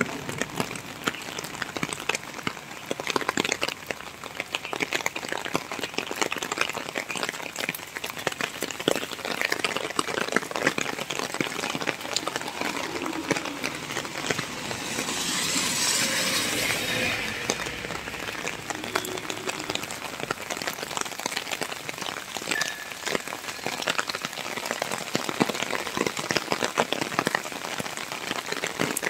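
Heavy rain falling: a dense, steady patter of drops, with a hiss that swells for a couple of seconds about halfway through.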